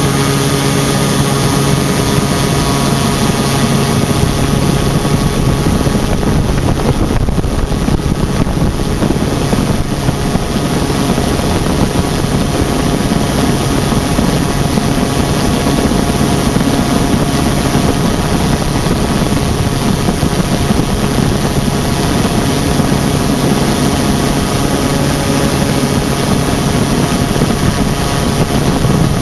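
Quicksilver MX ultralight's engine and propeller running steadily in level cruise flight, with a heavy wind rush over the open-cockpit microphone.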